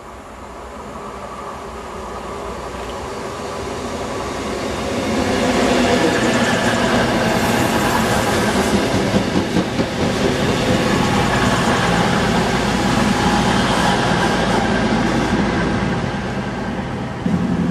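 CrossCountry Voyager diesel multiple unit approaching and running through the station at speed: its underfloor diesel engines and wheels on the rails build up steadily to a loud rush with clickety-clack, which tails off late on. Near the end a low steady hum cuts in abruptly.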